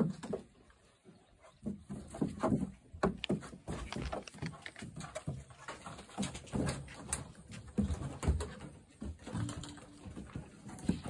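Monkeys scrambling over a hollow plastic playground slide, with irregular taps and knocks from their hands and feet and soft monkey calls among them.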